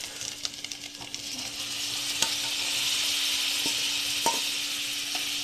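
Spiced masala and paneer cubes sizzling in hot ghee in a kadhai, a steady frying hiss that grows a little stronger after the first second or so, with a few light clicks of a utensil against the pan.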